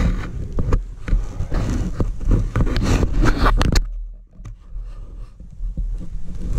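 Close rustling, scraping and sharp knocks as the bike-mounted camera is handled, going much quieter about four seconds in.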